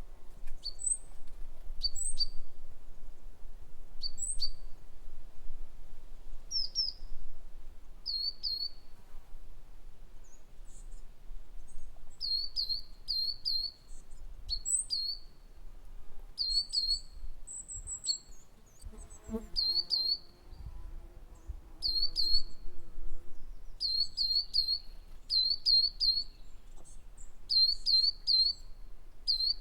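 Songbird chirping: short high chirps, often in quick runs of two to four, repeated again and again. A brief lower pitched call sounds about nineteen seconds in.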